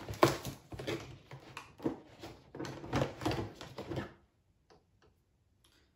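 Cardboard and packaging of a candle advent calendar crinkling and clicking as a candle is taken out of its compartment. The crackle stops about four seconds in, leaving a few faint clicks.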